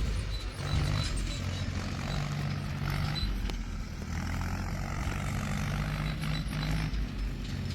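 Heavy diesel engine running steadily at low revs.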